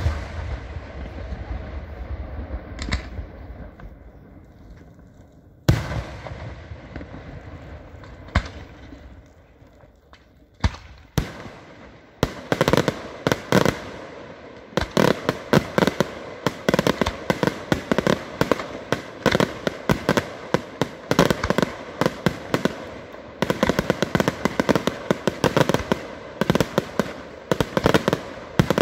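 Aerial fireworks display: a large shell bursts with a loud bang that echoes and fades over several seconds, followed by a few single bangs. From about twelve seconds in, a rapid barrage of many small shell reports and crackles runs on without a break.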